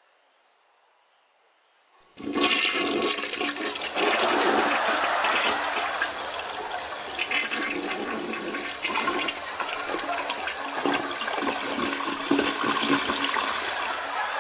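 Toilet flush sound effect: water rushing, starting suddenly about two seconds in and running on, easing off a little toward the end.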